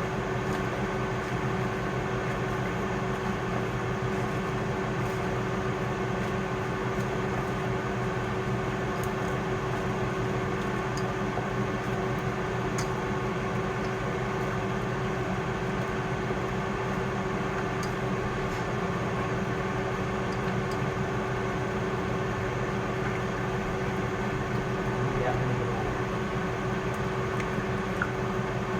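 Steady machine hum with a constant low tone and an even rushing noise, holding level throughout.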